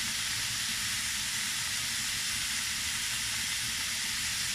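Diced chicken breast and onion sizzling in a little oil in a frying pan: a steady, even hiss.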